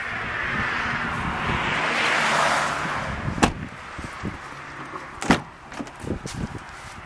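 A car passing on the street, its tyre noise swelling and fading over the first three seconds. Then a sharp click about three and a half seconds in, a louder one a little after five seconds and a few lighter knocks: the Kia Soul's door latch and handle being worked as a door is opened.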